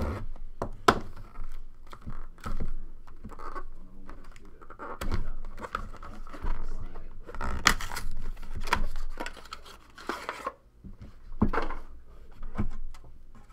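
Cardboard outer box of a 2012-13 Upper Deck The Cup hockey box being torn open and handled, and the metal card tin inside slid out onto the table: an irregular run of tearing, scraping and sharp knocks.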